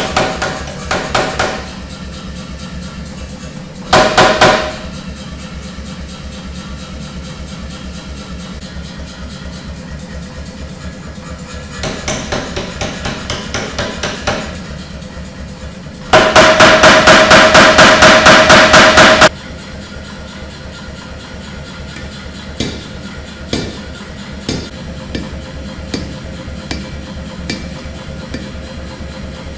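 Power hammer striking a red-hot Damascus steel billet in bursts of rapid blows, its motor running steadily between them. The longest and loudest run is about three seconds of fast, even heavy blows past the middle, followed by a few lighter single strikes near the end.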